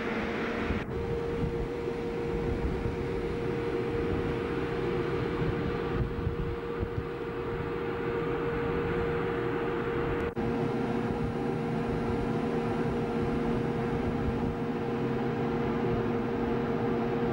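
Steady rumbling noise of a cruise ship under way, heard on the open deck, with wind on the microphone and a constant machinery hum. The sound breaks briefly twice, about a second in and about ten seconds in.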